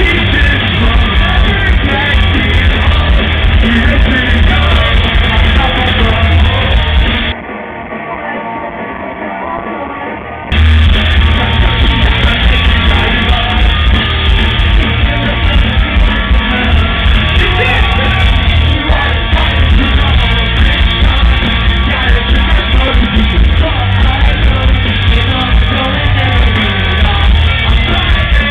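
Loud live pop-punk band playing through a PA, with sung and yelled vocals over distorted guitars, bass and drums. About seven seconds in, the band drops to a thinner, quieter passage without the bass for about three seconds, then the full band comes back in.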